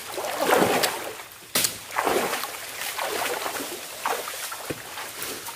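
Irregular splashing and sloshing of water, with a sudden sharp splash or knock about a second and a half in.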